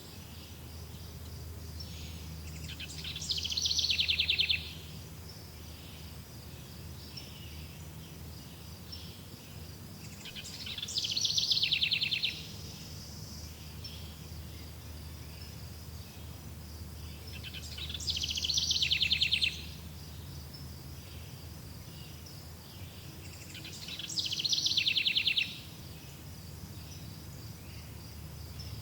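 A songbird sings the same short trilled song four times, about every seven seconds: a high opening note, then a fast trill that drops in pitch, grows louder and stops abruptly. A steady faint insect chirring runs behind it.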